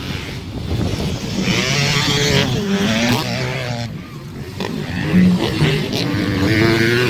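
Motocross motorcycle engines revving, their pitch rising and falling again and again, with a brief lull about four seconds in.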